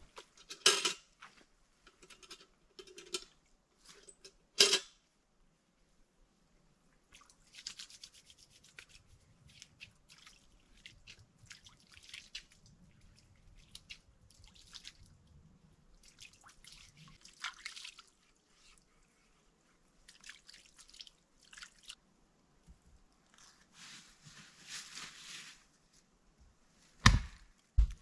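Hand work sounds: two sharp knocks early on, then patchy scraping and rustling, and two heavy blows near the end.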